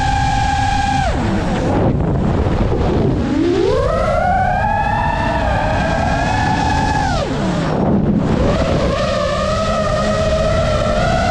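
FPV racing quadcopter's brushless motors whining, the pitch falling sharply about a second in as the throttle is cut, then gliding back up and holding, dropping again around seven seconds and climbing once more near the end.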